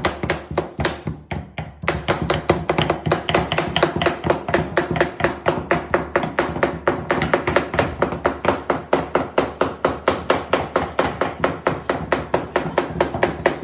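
A large kitchen knife chopping rapidly on a cutting board, even strokes about six a second, with a brief pause about a second in.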